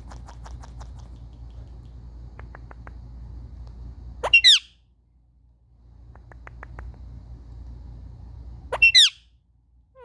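Indian ringneck parakeet squawking twice, two loud harsh calls about four and nine seconds in. Between them come short runs of light, quick clicks.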